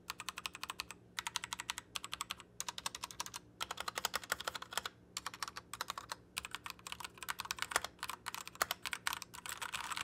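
Typing on a Royal Kludge RK68 65% mechanical keyboard with red linear switches: rapid runs of key clacks broken by short pauses.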